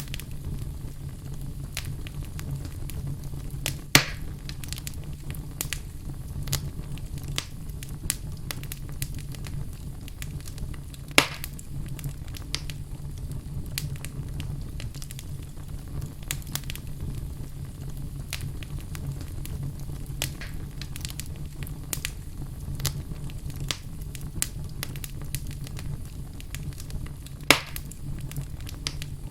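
Wood fire burning in a fireplace: a steady low rumble of flames with a constant scatter of small crackles and three louder sharp pops, about 4, 11 and 27 seconds in.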